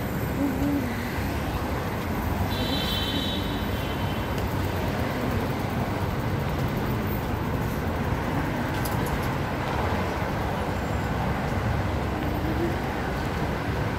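Steady city street noise, a continuous traffic rumble, with a brief high-pitched tone about two and a half seconds in.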